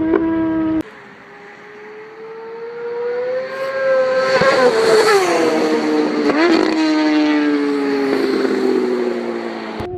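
A sport motorcycle coming up fast and passing by: its engine note builds and rises, drops sharply as it goes past, and then falls away. In the first second a different engine note cuts off abruptly.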